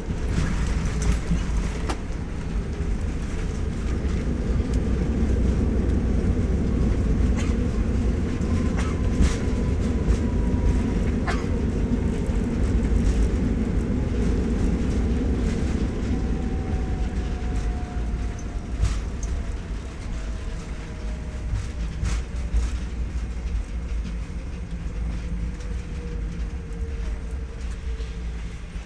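Airliner cabin noise during the landing rollout: a deep, steady rumble of the jet engines and the wheels on the runway, swelling for several seconds and then easing off. A faint whine slowly falls in pitch as the engines spool down, with occasional small rattles from the cabin.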